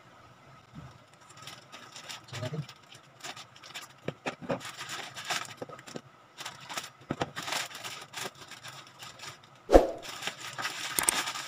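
Plastic courier mailer being cut open with scissors and handled, giving a run of crinkles, crackles and rustles, with one sharp thump about ten seconds in.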